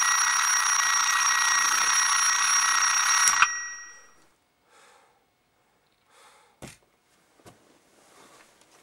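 Alarm clock ringing loudly and steadily, cut off abruptly with a click about three and a half seconds in as it is switched off. Bedclothes then rustle faintly, with one sharp knock a few seconds later.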